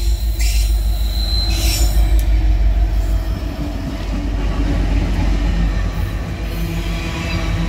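An EMD SD70 and a GE C30 diesel locomotive at the head of a freight train pass close by, their engines running with a loud, heavy low rumble under the noise of steel wheels on the rails. There are brief high hissing flares in the first two seconds, and a steady low hum sets in after about five seconds as the second locomotive goes by.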